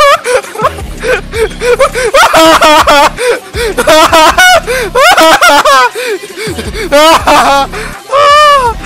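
A person laughing hard in several bursts of short, repeated 'ha' sounds, with a song playing faintly underneath.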